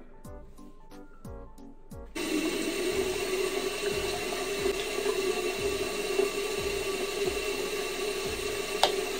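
Tap water running into a bathroom sink, starting abruptly about two seconds in, over background music with a steady beat. A single sharp click near the end.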